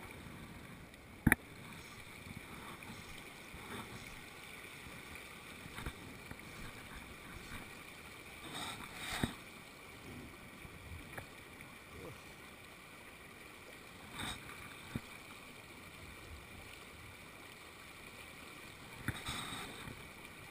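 River water flowing steadily over rocks, a low continuous rush, broken by a few sharp clicks and knocks, the loudest about a second in.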